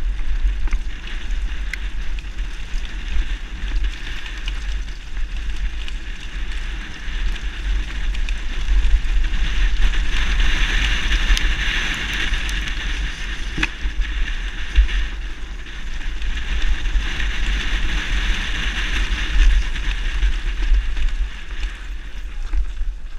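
Mountain bike descending a rough dirt-and-dry-leaf trail, heard from a helmet camera: steady wind buffeting on the microphone with tyre noise and the bike's rattle over the ground, loudest about halfway through.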